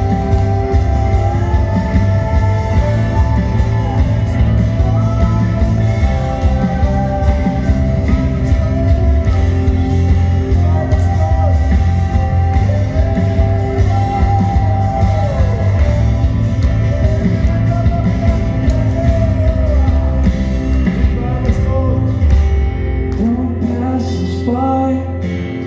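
Worship music: a band with guitar and steady bass, with a voice singing over it.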